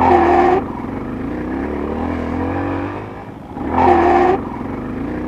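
Dirt bike engine running and revving, with two short, loud, steady-pitched screeches, one at the start and another about three and a half seconds later. This is the kind of screeching mechanical sound the rider gets in second gear when pulling away under throttle, which he suspects comes from a failing clutch.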